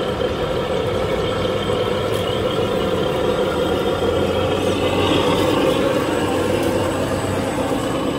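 Several 1/10 scale RC crawler trucks running together, their electric motors and geared drivetrains making a steady whine with gear noise as they crawl along.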